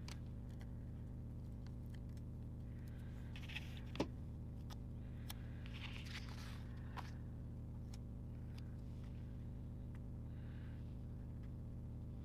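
Faint rustling and light clicks of sticker sheets and paper being handled, with one sharper click about four seconds in, over a steady low hum.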